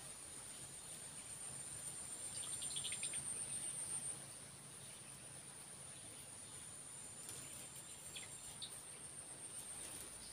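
Insects trilling steadily at a very high pitch, with a second, fainter trill coming and going. A cluster of brief high chirps sounds about two and a half seconds in.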